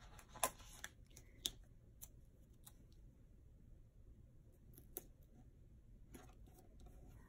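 Faint paper handling as a planner sticker is pressed and smoothed onto a paper page by hand, with a few short, sharp clicks, the loudest in the first two seconds and one about five seconds in.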